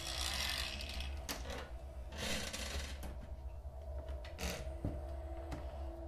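A chest-of-drawers drawer sliding open by itself in several short, jerky scrapes and knocks, over a low steady drone.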